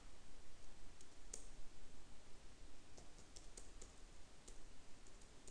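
Faint computer keyboard keystrokes: scattered, irregular clicks as numbers are typed into a data-entry form.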